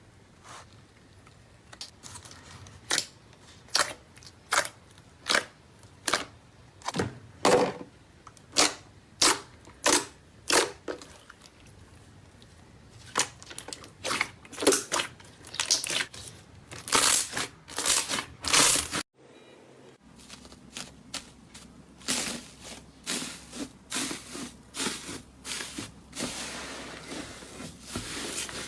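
Slime being squeezed and poked, giving a run of sharp pops and crackles about one or two a second. They break off briefly about two-thirds of the way through, then start again.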